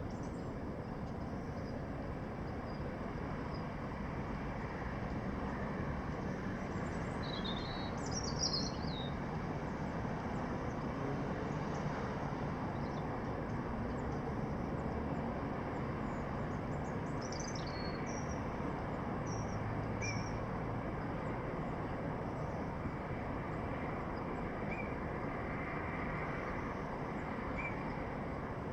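Steady hum of distant city noise with birds chirping over it in short scattered calls, a cluster about a quarter of the way in, more a little past the middle, and again near the end.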